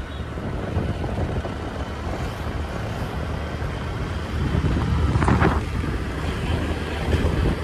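Gearless scooter riding along the road: steady wind rushing over the microphone with low engine and road rumble, and a brief short sound about five seconds in.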